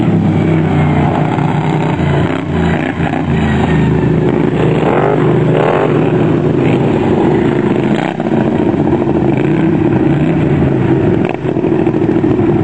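Racing riding lawn mower engines running hard around a dirt track, a steady loud drone with the pitch rising and falling as they rev, most clearly about halfway through.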